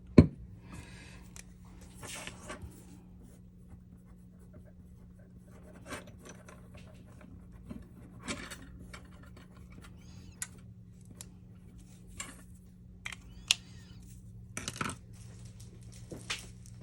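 Phone repair work on a bench: scattered light clicks, taps and scratches of tools and the phone being handled, with a sharp click right at the start and a steady low hum underneath.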